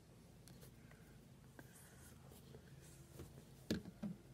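Faint rustles and soft taps from hands and clothing as a person signs, over a low room hum, with a sharper tap about three and a half seconds in.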